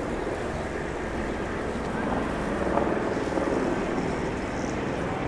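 Steady low rumble of city background noise, mostly distant traffic, with no single sound standing out.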